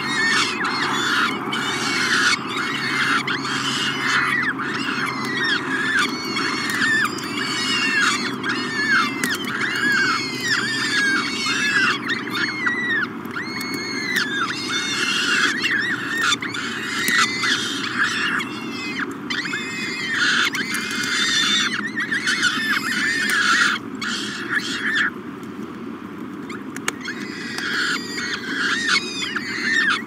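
Peregrine falcon chicks begging while being fed, a dense chorus of high, rapidly repeated chirping calls that breaks off for about two seconds near the end. A steady low rumble runs underneath.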